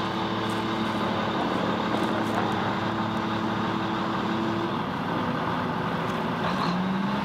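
Engine of the machine hauling the tractor out of the river, running steadily under load while the tractor drags up the bank; its pitch steps up slightly near the end.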